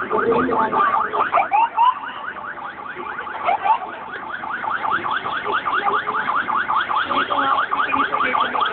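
Escort vehicle's siren in yelp mode: fast, repeated rising whoops, about five a second. It dips a little about two seconds in and grows louder again toward the end.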